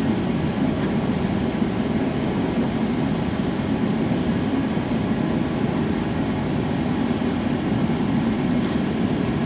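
Gas forge burner running with a steady rushing noise.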